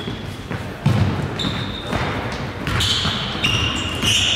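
Basketball game play: a ball bouncing on the court with a heavy thud about a second in, and several short high-pitched sneaker squeaks near the end.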